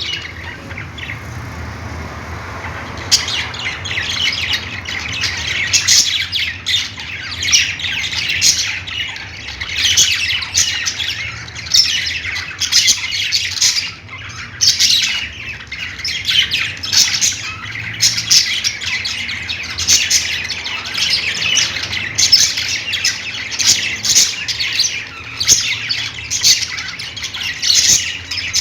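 Pet budgerigars chirping and squawking nonstop, many short high calls in quick succession. The calls are sparser in the first few seconds.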